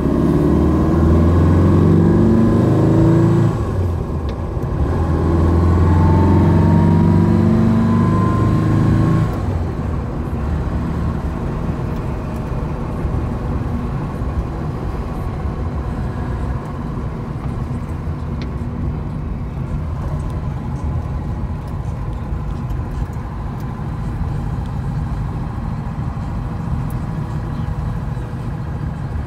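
Porsche 356 B's 1582 cc flat-four engine with a non-original exhaust, heard from inside the cabin. It accelerates through two gears, rising in pitch each time, with a short dip at the gear change about four seconds in. About nine seconds in it eases off and runs steadily at lower revs while the car cruises.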